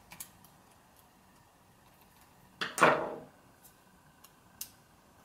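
Faint clicks and taps of small plastic and metal parts as a Canon PowerShot G10's housing is pressed back into place, with one louder brief sound about two and a half seconds in.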